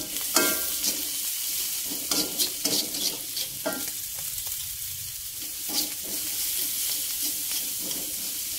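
Onion, garlic and chillies sizzling in hot oil in a metal wok while a metal spatula stirs them, with several sharp scrapes and clinks of the spatula on the wok, a few of them ringing briefly.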